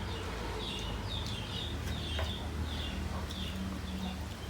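A bird chirping over and over, short chirps that fall in pitch, about two a second, over a steady low hum. There is a single sharp click about two seconds in.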